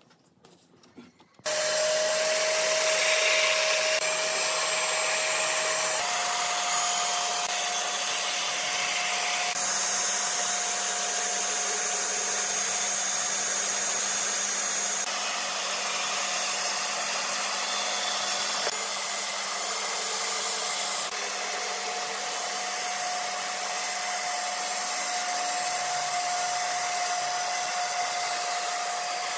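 Bandsaw running and cutting a curved line through a wooden board, with a steady whine over a constant hiss. It comes in suddenly about a second and a half in, after a near-silent moment, and its sound shifts abruptly a few times.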